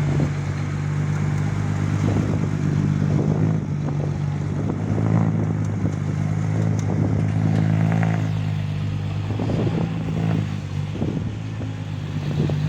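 A dump truck's diesel engine running steadily under load as the truck works through soft, slippery soil, with some mechanical clatter.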